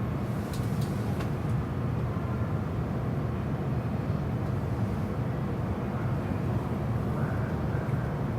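E259 series Narita Express electric train running, heard from inside the passenger cabin: a steady low rumble, with a few faint clicks about a second in and a faint rising whine near the end.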